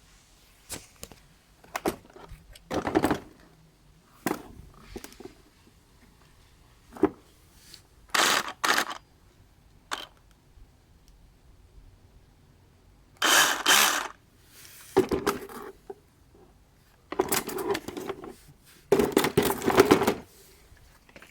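Intermittent handling noises from unpacking a cordless rotary hammer and its case: sharp clicks and knocks, with several short rustling or scraping bursts, the longest about a second each, around 13 and 19 seconds in.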